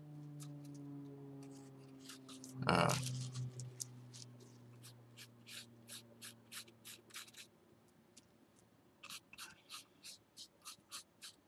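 Paintbrush scratching and dabbing a black wash onto a textured terrain column: a run of short, quick strokes that grows busier toward the end. A low hum fades away over the first several seconds, and a brief louder noise comes about three seconds in.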